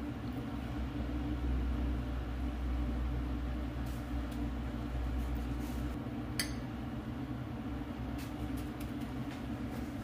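Steady low mechanical hum, with a few faint light clicks and taps from kitchen handling.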